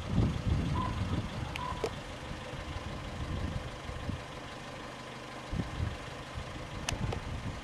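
Two short beeps about a second apart, like a vehicle's reversing alarm, over a steady low rumble.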